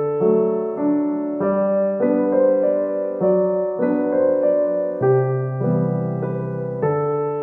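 Background piano music: a melody of held notes, changing about every half second.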